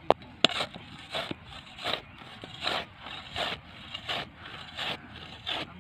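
A flat metal hand blade being driven repeatedly into turf, scraping and cutting through grass roots and soil in about nine short strokes, roughly one every 0.7 seconds, with two sharper clicks at the start.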